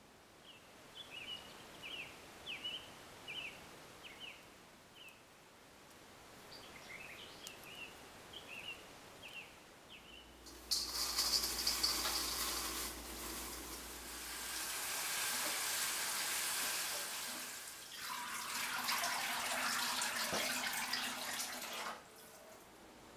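A small bird chirping in short repeated notes, about two a second, for the first half. Then water runs loudly into a stainless steel kitchen sink as a colander of freshly picked yaupon holly leaves is rinsed and drained, with one knock, and the water cuts off suddenly near the end.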